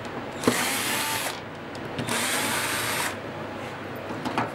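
Cordless drill-driver running in two bursts of about a second each, backing out the screws that hold a wooden workpiece down to a CNC machine's spoilboard.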